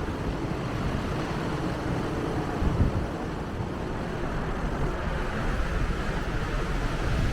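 Strong gusty wind buffeting a small camera's built-in microphones: an uneven low rumble under a steady rushing hiss.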